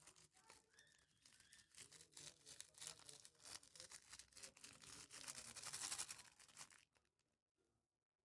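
Crunchy floam slime being squished and worked by hand, a dense crackling of popping foam beads that grows loudest about six seconds in and then stops.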